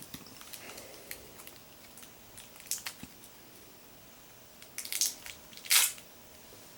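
Packaging being handled and worked open by hand: scattered small clicks and crinkles, with two louder crackling rustles near the end.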